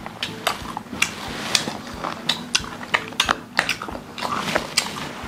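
Eating sounds: metal chopsticks clicking against stainless steel bowls and dishes with biting and chewing, as many irregular sharp taps.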